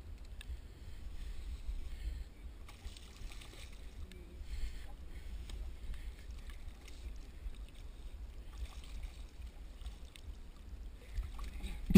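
Inflatable boat afloat on a choppy sea: a steady low rumble with faint water splashing and lapping against the hull.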